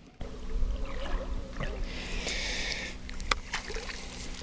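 Sounds aboard a fishing boat during casting: a steady low hum, a brief hiss about two seconds in as a lure is cast, and a sharp click a moment later.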